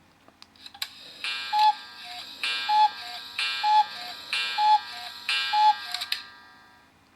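A Sony Ericsson W800i ringtone: a bright electronic phrase with a falling two-note figure, repeated five times about once a second after a few clicks, then fading out about six seconds in.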